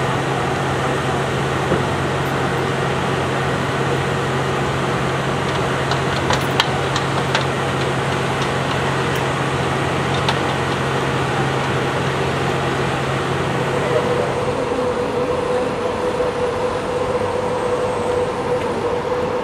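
An engine running steadily under outdoor background noise, with a few sharp clicks in the middle. About fourteen seconds in, the low hum stops and a steady higher drone takes its place.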